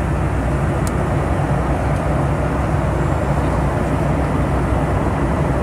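Steady cabin noise of an airplane in flight: an even, loud rumble of engines and airflow, heaviest in the low range.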